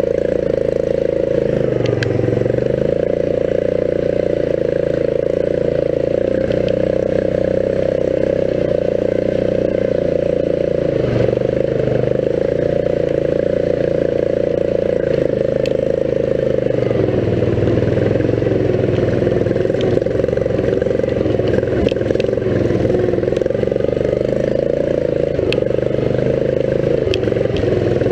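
Riding lawn mower's engine running steadily while the mower drives over a rough dirt trail, with a few brief knocks and rattles.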